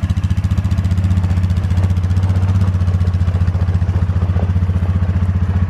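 Polaris four-wheeler (ATV) engine idling steadily, just after starting.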